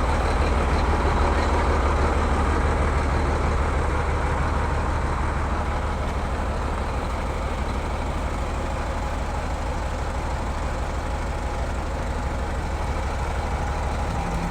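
Heavy diesel engine running steadily with a low, even hum, easing slightly in loudness as it goes.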